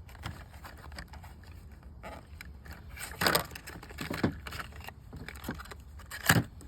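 New spark plugs being handled on a work surface: scattered light clicks and knocks, with louder sharp knocks about three seconds in and again near the end.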